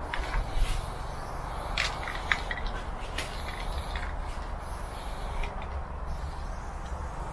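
Aerosol spray-paint can hissing in several short bursts, mostly in the first half, over a steady low rumble.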